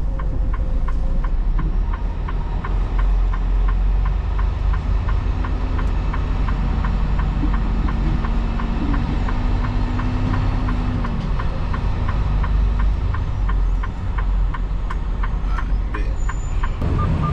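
Semi-truck diesel engine running at low speed, heard from inside the cab, with a steady even ticking over it.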